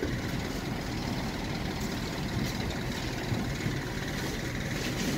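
A vehicle engine idling steadily, a low continuous rumble.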